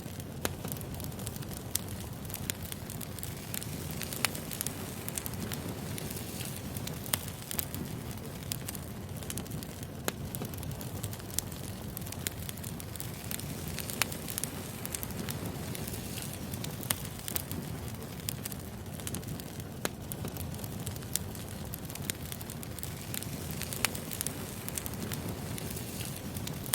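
Wood fire burning: a steady low rumble of flames with frequent sharp, irregular crackles and pops of burning logs.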